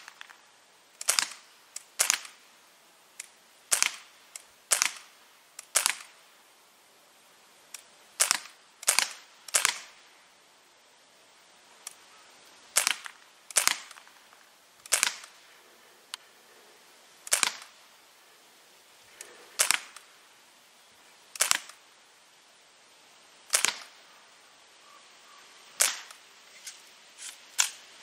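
Daisy Model 74 CO2-powered BB rifle firing shot after shot, about eighteen sharp cracks a second or two apart with a few longer pauses.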